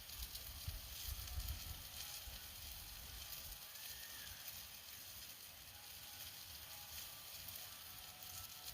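Meat sizzling on a grill over a campfire: a faint, steady hiss.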